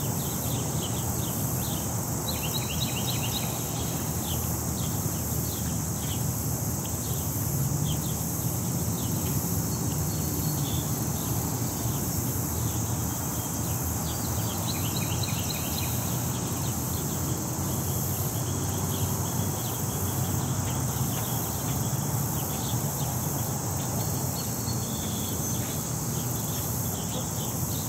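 Park ambience: a steady high-pitched insect drone with small birds chirping and trilling now and then, over a low steady rumble of city traffic.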